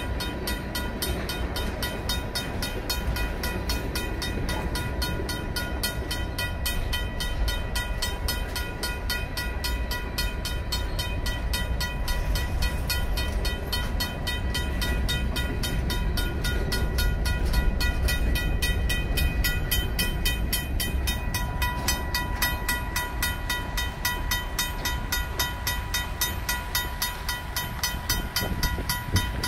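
A RACO mechanical crossing bell rings with rapid, even strokes while the freight cars of a Union Pacific train rumble and clatter past on the rails. The rumble eases near the end as the last car rolls away.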